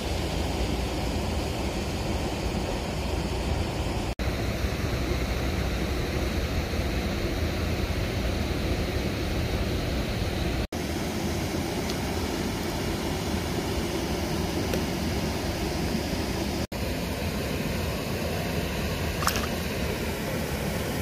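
Steady rushing outdoor noise at a river's edge, from wind and moving water, broken by three split-second dropouts. A short, sharp sound comes near the end.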